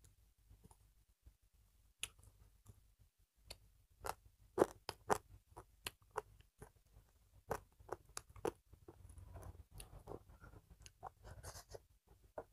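Close-miked eating sounds: a person chewing a mouthful of rice and lentil curry eaten by hand, with many sharp, irregular mouth clicks and smacks. A softer, rustling stretch comes near the end, as the hand mixes rice on the plate.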